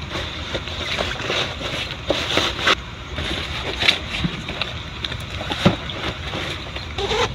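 Rustling and light knocks of school things being handled and packed into a cloth school bag, over a steady background noise.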